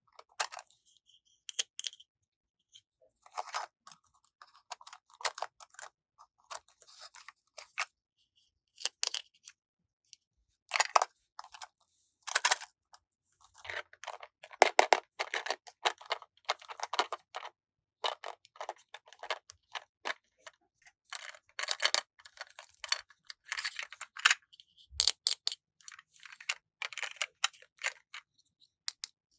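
Toy pieces and packaging being handled: irregular clicks, taps and brief rustles in short clusters with gaps between.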